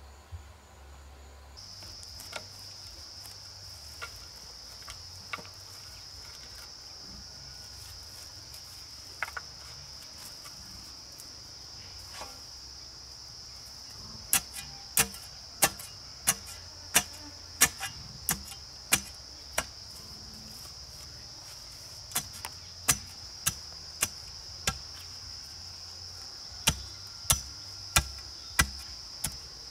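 A bar ramming soil around the base of a bamboo post makes sharp knocks in runs of about one and a half a second from about halfway in, with short pauses. Under them, insects drone steadily at a high pitch.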